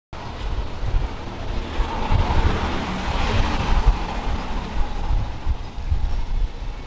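Wind buffeting the microphone: a ragged, gusting low rumble, with a broad hiss that swells in the middle and fades away.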